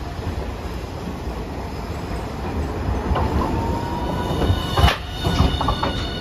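Articulated low-floor tram rolling slowly round a tight street-track curve with a steady rumble. About three-quarters of the way through its wheels hit the rail joints with one sharp clack, then a few lighter clacks, and high wheel squeal from the curve carries on to the end.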